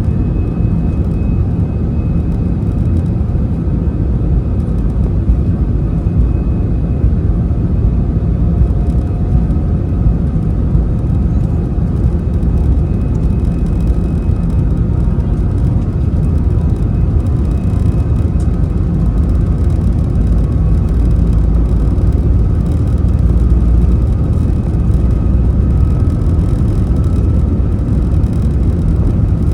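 Airbus A320-200 jet engines and airflow heard from inside the passenger cabin: a loud, steady low rumble with faint high whining tones.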